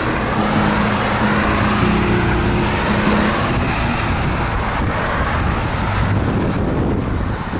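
Steady outdoor noise: wind buffeting the microphone, with road traffic behind it.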